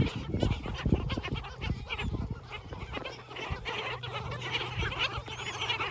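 A large mixed flock of gulls and black skimmers calling, a steady chatter of many short overlapping calls, with low thumps on the microphone.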